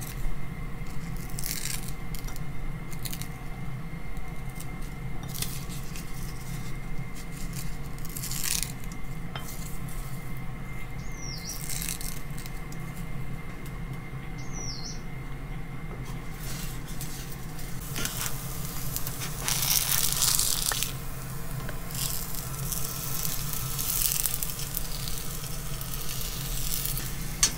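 Kitchen scissors snipping sheets of dried nori, a cut every second or two through the first half, over a steady hum and the quiet sizzle of daikon mochi frying in oil. The sizzle comes up louder in stretches toward the end.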